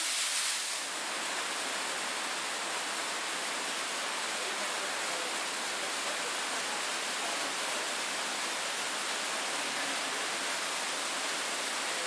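Waterfall pouring over rock and splashing into a plunge pool: a steady rush of falling water, its hiss dulling slightly about a second in.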